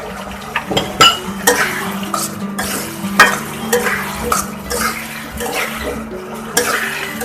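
A metal spoon stirring and scraping in a cooking pot, with irregular clinks and scrapes about two a second, as small potatoes are turned through the spiced curry masala.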